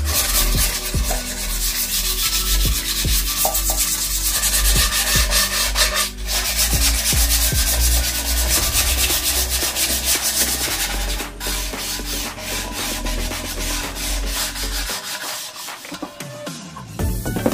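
Wooden tray being hand-sanded, rubbed back and forth on a sheet of sandpaper laid flat on the bench: a continuous rasping scrape of wood on abrasive paper, easing off near the end.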